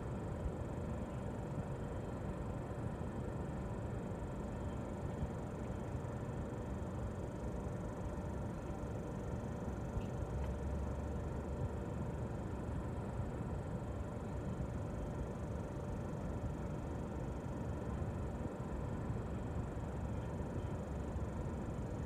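Steady low rumble of an idling vehicle, heard from inside its cabin, with a faint even hum over it.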